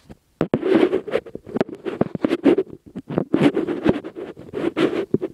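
Irregular bursts of rubbing, scraping and knocking right against the microphone, with many small clicks: handling noise as the recording phone is moved and set down.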